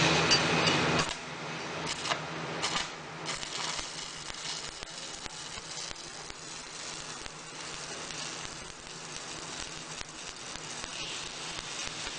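Shielded metal arc (stick) welding: the arc crackles and sizzles steadily, with scattered small pops. It is louder, with a low hum under it, for about the first second, then settles to an even crackle.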